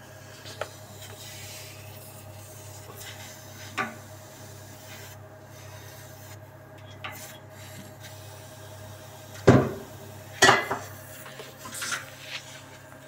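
Handling noise at an air-conditioner compressor: a hand rubbing and tapping on the pipework, with a few light clicks and two loud knocks about a second apart near the end, over a steady low hum.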